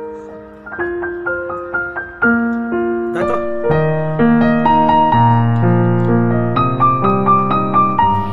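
Background piano music: a slow melody of held notes that grows fuller and louder a few seconds in, as lower bass notes join.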